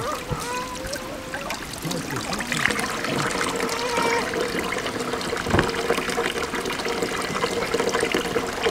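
A thin stream of water pouring from a pipe into a steel tray of water, splashing off a raw chicken being rinsed under it at first, then falling straight into the tray. A single knock sounds about halfway through.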